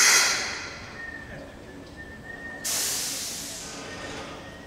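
Two sudden loud hisses of released pressure, one right at the start and one about two and a half seconds later, each fading away over a second or two, with a faint steady high-pitched tone between them.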